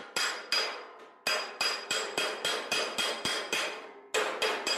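A smooth spoon slapper beats along a welded sheet-steel seam held over a dolly. The blows come about three or four a second, each ringing metallic, with a short pause about a second in. The metallic ring is the sign that the dolly is backing the blows, so the weld is being stretched back out rather than the panel dented in.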